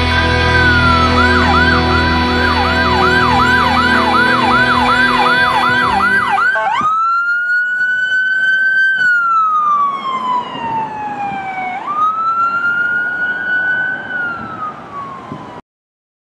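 Emergency vehicle electronic siren on a fire department SUV: a fast yelp, about two to three sweeps a second, over the last bars of a song, then, once the music stops, a slow wail that rises and falls twice before cutting off suddenly.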